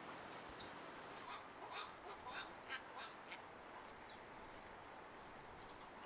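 Faint bird calls: a quick run of about eight short, high notes between one and three and a half seconds in, with a single note just before and another after.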